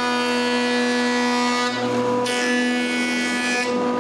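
Woodworking power tool running steadily while working construction lumber, giving a constant whine over a rush of noise. The tone and noise shift slightly about two seconds in.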